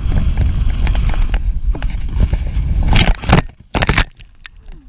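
Wind rush and rattling on an on-board camera as a mountain bike speeds down a dirt trail, then a crash: loud knocks about three and four seconds in, after which the rushing stops.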